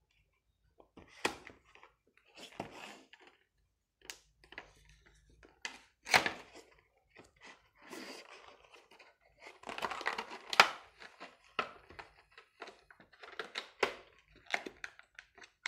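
A mouse's retail box and its packaging being handled and opened by hand: irregular rustling, crinkling and scraping with scattered clicks and knocks. There is a sharp snap about ten and a half seconds in.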